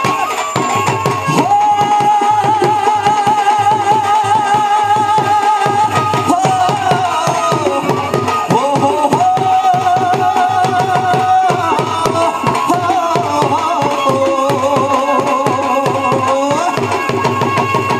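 Instrumental Punjabi folk music for bhangra: fast, steady hand-drum strokes under a held melody line with a strong waver that moves to a new note every few seconds.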